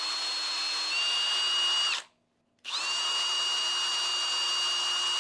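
Cordless drill running at steady speed, boring the rear axle holes through a pinewood derby car's wooden body held in a drill jig. A high steady whine with hiss stops about two seconds in, and a second run starts half a second later and stops near the end.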